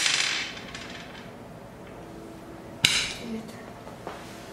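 Sharp clattering knocks on a glass tabletop: a loud one at the start and another about three seconds in, each with a short hissy tail, and a faint tap near the end.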